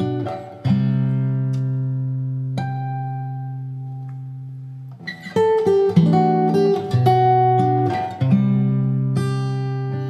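Acoustic guitar playing a slow ballad intro: a few chords struck and left to ring and fade, with quicker picked notes about halfway through.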